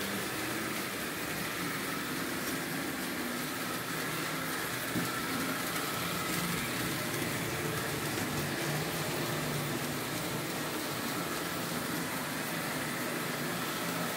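Märklin H0 model trains running on the layout's track: a steady hum of the small locomotive motors and the rolling of wheels on the rails, with no sudden events.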